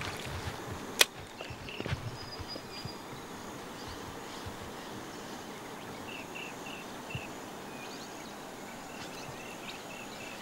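Quiet riverbank outdoor ambience with one sharp click about a second in and a softer knock just after. Runs of short high chirps come in groups of four or five, several times.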